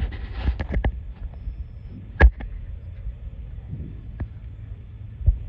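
Aerial firework shells bursting far off, heard as thunder-like booms: a loud, sharp bang about two seconds in, a fainter one about four seconds in, and a duller boom near the end, over a steady low rumble.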